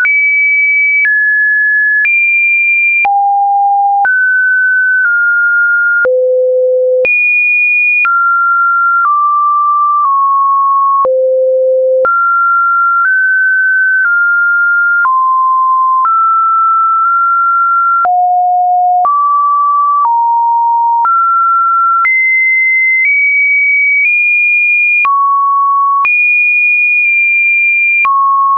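Computer-generated sine-wave test tones: one pure electronic beep after another, each held for about a second before jumping to a new, random-seeming pitch, from middling to quite high. The level is steady, with a faint click at each change of pitch.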